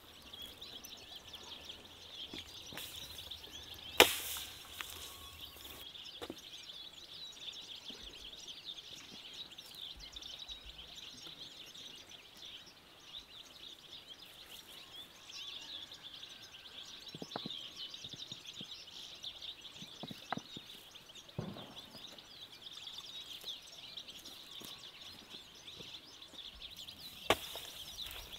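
Outdoor background of many small birds chirping steadily, broken by a few sharp knocks. The loudest knocks come about four seconds in and again near the end.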